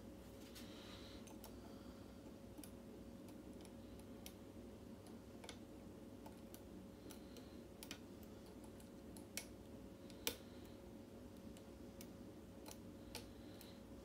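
Faint, irregular clicks of a hook pick working the pins and warding inside a Quickset mortise cylinder lock, over a faint steady hum. Two of the clicks, in the second half, are louder.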